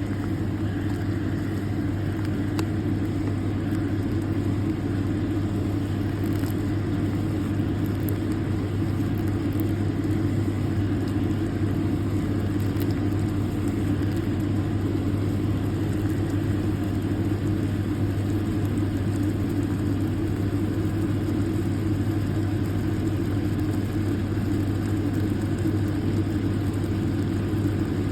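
A steady low mechanical hum with a rumble, unchanging throughout.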